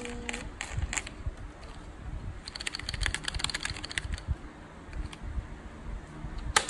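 Hard plastic toy dump truck parts clicking and clattering as they are handled and fitted together, with a quick run of small clicks around the middle and a sharper click near the end.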